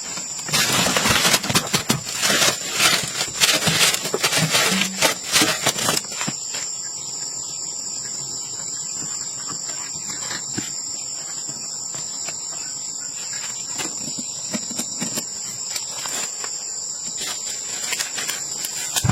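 A steady, high-pitched insect chorus of crickets or similar insects. During the first six seconds it is joined by a louder run of crackling and rustling clicks.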